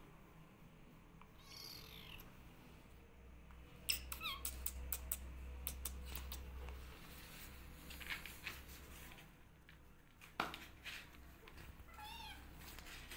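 Kittens mewing a few times in short, high, wavering calls, the clearest near the end. Sharp clicks and rustles of handling come in between, the loudest just after four seconds and about ten seconds in.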